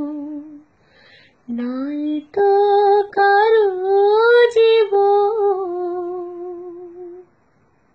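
A woman singing unaccompanied: a held note trails off, then after a short breath a long drawn-out closing phrase rises and falls in pitch and stops about seven seconds in.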